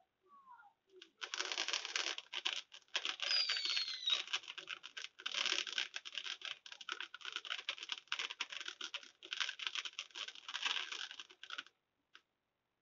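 Crackling fireworks: a dense, rapid run of small pops that starts about a second in and stops suddenly near the end, with a short falling whistle about three seconds in.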